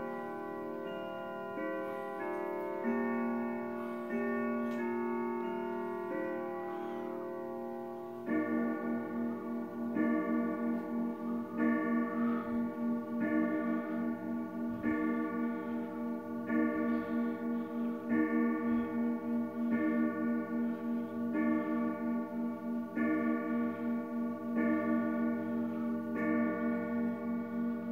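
A 1996 Howard Miller 610-600 grandfather clock finishes its chime melody, then strikes the hour twelve times for twelve o'clock. The strikes are evenly spaced about a second and a half apart, and each deep note rings on into the next.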